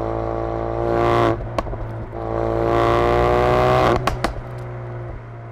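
2016 Ford Focus RS's turbocharged 2.3-litre EcoBoost four-cylinder revved twice through its stock exhaust, the pitch rising each time. Each lift-off brings sharp pops and bangs from the exhaust, a single crack after the first rev and a quick string of three or four after the second, before the engine drops back toward idle.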